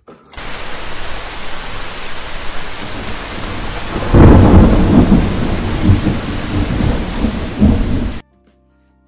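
Loud thunderstorm sound: a steady downpour hiss with a heavy rumble of thunder rolling in about four seconds in, cut off abruptly. It is dubbed in as an exaggerated stand-in for the noise of a refrigerator's door water dispenser filling a cup.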